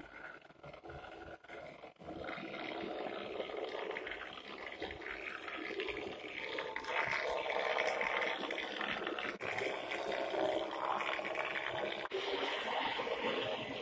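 Kleinbahn H0 model electric locomotive, digitised with an ESU LokPilot 5 decoder, running along the track: a steady whirr of its motor and the rattle of its wheels on the rails, growing louder as it comes closer.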